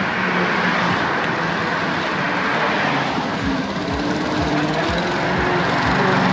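Wind rush and road noise on the microphone while riding a bicycle, with motor traffic passing; several vehicles go by in the second half.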